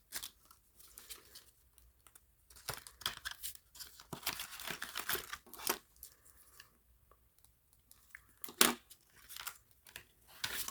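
Paper bills and envelopes being handled: irregular rustling and crinkling of paper, with a single sharp click about eight and a half seconds in.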